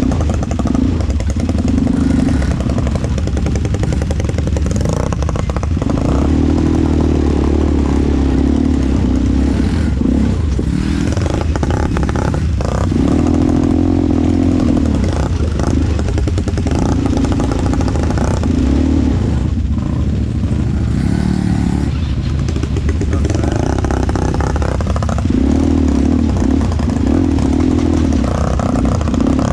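ATV engine running under way, its throttle opening and easing off every few seconds.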